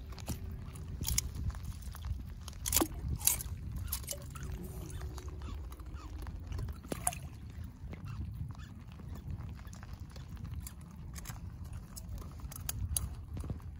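Low, steady wind rumble on the microphone, with scattered sharp clicks and light splashing as a northern pike is held at the surface of an ice-fishing hole.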